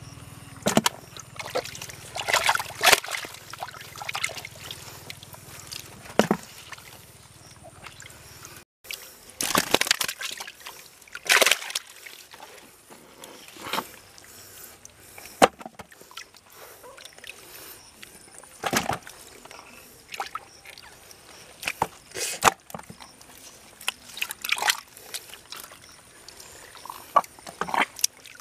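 Muddy water sloshing and splashing as hands grope through a small water-filled hole in the ground, in irregular sudden splashes.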